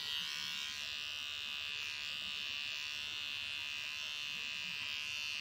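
Small cordless electric pet trimmer running with a steady buzz while trimming the fur between a cat's paw pads.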